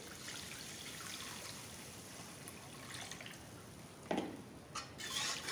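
Hot water poured from a jug into a wok of fried mustard-paste masala, a steady pouring hiss for about four seconds. Then a metal spatula knocks against the wok a couple of times.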